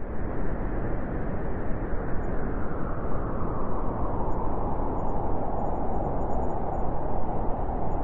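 Strong blizzard wind buffeting the microphone: a loud, low rushing noise that rises and falls with the gusts.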